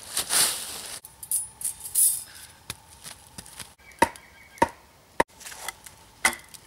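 A rushing, rustling noise for about the first second. After an abrupt break comes a series of sharp knocks at irregular intervals, roughly one or two a second, several with a brief ring: blows of a hand tool, such as a mallet or hatchet, during camp setup.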